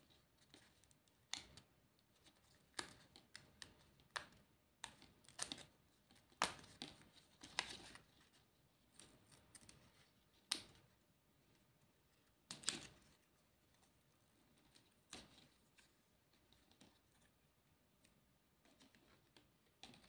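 Stiff sticker sheet and card being handled as sticker pieces are peeled off the backing: irregular soft clicks, crackles and short rustles, several sharper ones in the middle.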